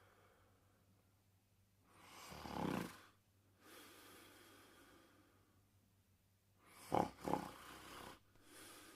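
Snoring in deep sleep: slow, noisy breaths, with a loud snore about two and a half seconds in and a sharp double snort about seven seconds in, the loudest sound.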